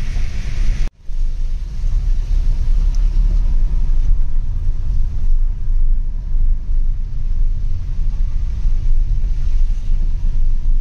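Car driving, a steady low rumble of engine and road noise, with a brief drop-out about a second in.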